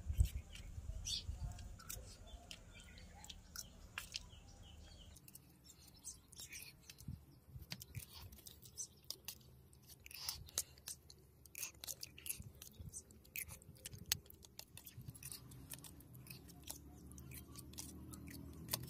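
A person chewing mouthfuls of dal and rice, with many small, sharp clicks of a steel spoon against the steel bowl and teeth scattered through it.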